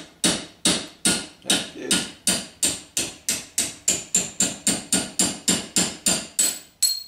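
Ball-peen hammer striking a steel punch against a #60 roller chain link, driving the link's pin through: a steady run of sharp metal-on-metal blows, about three a second and quickening slightly. The later blows ring higher.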